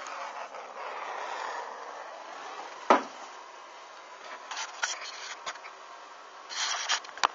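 Steady hiss of a gas torch flame that fades away over the first two seconds, then one sharp pop about three seconds in, followed by scattered short crackles and rustles as the strip burns on by itself.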